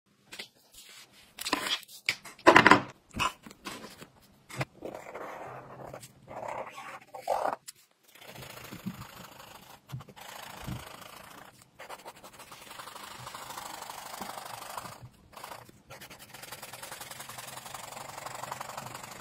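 Acrylic marker nib rubbing over notebook paper in rapid back-and-forth strokes as it colours in a shape. A few sharp knocks and clicks come in the first seconds, the loudest about two and a half seconds in.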